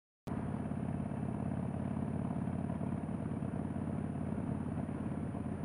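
Harley-Davidson Seventy-Two's air-cooled 1200 cc V-twin running steadily while the motorcycle is ridden at an even speed. It comes in abruptly about a quarter-second in, a loud, deep, even pulsing with no revving.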